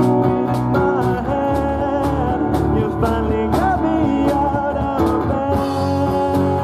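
Live rock band playing: acoustic and electric guitars, electric bass and drum kit, with a melodic lead line bending in pitch over a steady drum beat.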